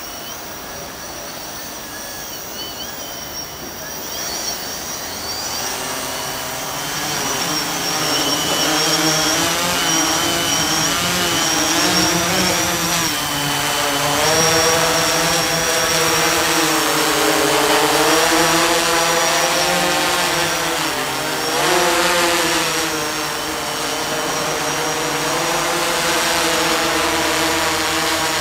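Electric octocopter's eight motors and propellers whirring as it lifts off and hovers with a payload bottle slung beneath. The sound grows louder over the first several seconds, then holds, its pitch wavering up and down as the motors adjust thrust.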